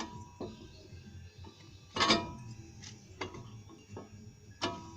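Metal clinks and knocks of a Lada Vesta's brake caliper being worked off its guide pins and handled, four in all, the loudest about two seconds in with a short metallic ring.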